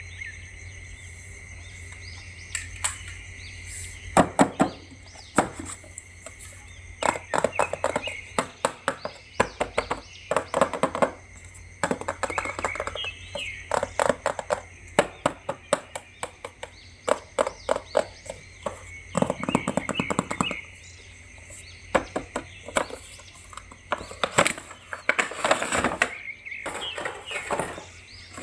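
Plastic action figures and their packaging being handled: irregular clicks, taps and crinkles, some in quick clusters.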